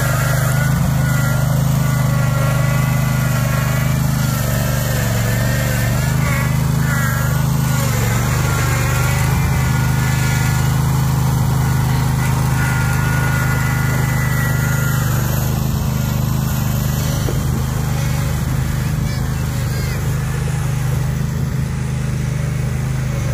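Small gasoline engine on a homemade tracked vehicle running steadily as it drives over a dirt slope. A higher whine wavers up and down through the first half.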